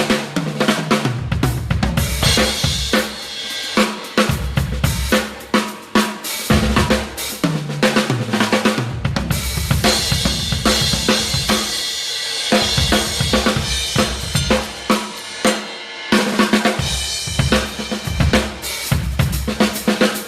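Crush drum kit played hard in fast gospel-style chops: rapid snare and tom fills with kick drum, two of them running down the toms, under long stretches of crashing Zildjian A Custom cymbals.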